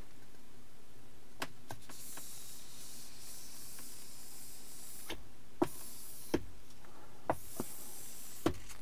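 Small squeegee scraping over a tempered glass screen protector on a car touchscreen, pressing it down to push out air bubbles: strokes of thin, hissy scraping, with several sharp clicks, most of them in the second half.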